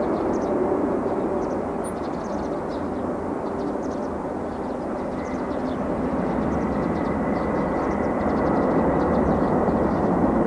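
Jet engine noise from a landing Boeing 747-400 freighter's four engines: a steady rushing rumble that grows louder over the last few seconds, with a thin high whine joining about halfway through.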